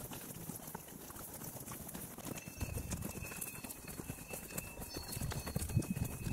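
Footsteps of a hiker walking on a grassy, stony mountain path, an uneven run of small steps and scuffs, with wind rumbling on the microphone.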